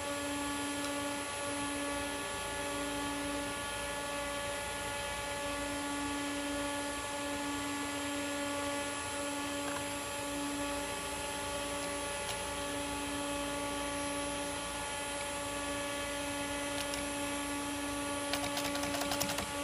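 Steady electrical hum and fan hiss of running computer hardware: several unchanging tones over an even rushing noise.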